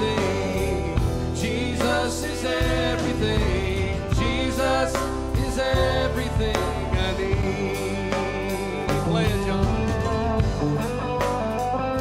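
Live recording of a gospel band: singing over guitar and bass with a steady beat of sharp hits.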